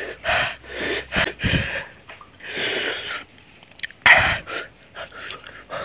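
A person drawing and blowing sharp, hissing breaths through the mouth, about five in the first three seconds and a louder one about four seconds in, in reaction to the burn of raw ginger eaten with salt and chili.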